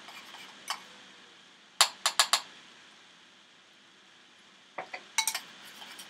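Metal spoon clinking against a white ceramic bowl as a thick ranch dressing is stirred. There is a single clink about a second in, a quick run of four clinks about two seconds in, and another short run near the end.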